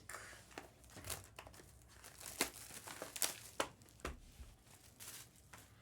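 Plastic trading-card packaging crinkling and tearing as it is opened, quietly, with scattered sharp crackles.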